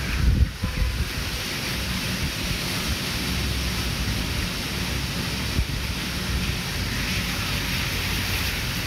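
Wind buffeting the microphone over a steady rushing hiss, with the strongest gusts just after the start.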